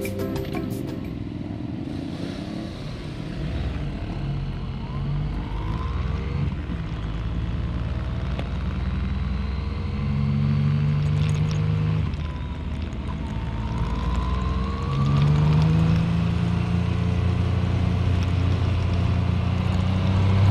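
Yamaha MT-09's three-cylinder engine running under way, its pitch rising several times as the throttle opens and easing back between, with wind and road noise underneath. It gets louder in the second half.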